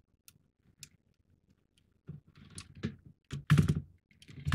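Small model parts, LED wiring and a circuit board being handled: faint scattered clicks at first, then from about two seconds in louder clicking, knocking and rustling close to the microphone.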